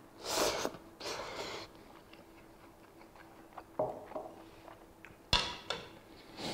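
A person slurping instant ramen noodles in two quick slurps, then chewing with a few soft mouth clicks and one sharper click about five seconds in.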